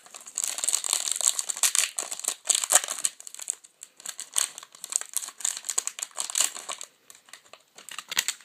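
Plastic wrapper of a trading card pack crinkling and tearing as it is opened, a dense run of quick crackles that thins out near the end.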